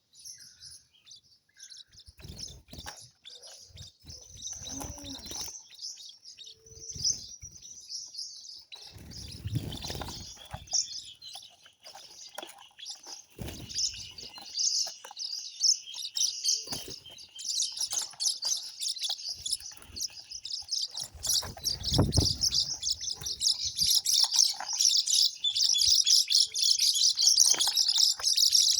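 Many small birds chirping rapidly, a dense chorus that grows louder and busier in the second half. A steady high note runs under it through the middle, and there are two brief low rumbles, about a third of the way in and again near three quarters.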